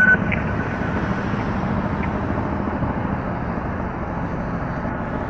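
Steady rumble of road traffic as vehicles approach along the street, with no siren sounding.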